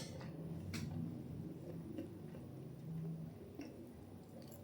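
A few faint ticks and clicks of cutlery and food being handled at a meal, over a low steady hum.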